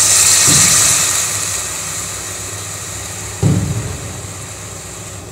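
Water sizzling and hissing in hot ghee with fried onions and spices in a pressure cooker base, the hiss loudest at first and dying down over a couple of seconds as the water takes the heat. A steady low hum runs underneath, and there is a short low thud about three and a half seconds in.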